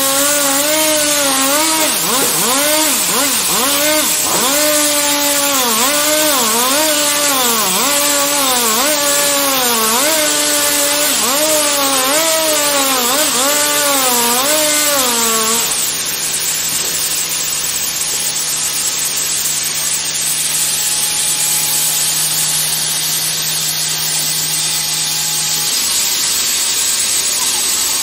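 Industrial log sawmill cutting through a log: a steady hiss of sawing under a machine whine that sags and recovers about every second and a half. The whine stops about sixteen seconds in, while a low steady hum carries on until near the end.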